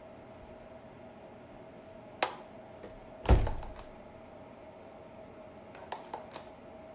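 Handling knocks from hands working around a raw turkey in a disposable foil roasting pan and a tray of marinade: a sharp tap about two seconds in, a heavier thud a second later, and a few light clicks near the end, over a faint steady hum.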